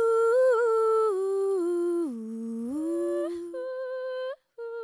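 A woman singing slowly and unaccompanied, drawing out a long phrase of held notes: the melody dips low about two seconds in, rises again, and breaks off briefly near the end.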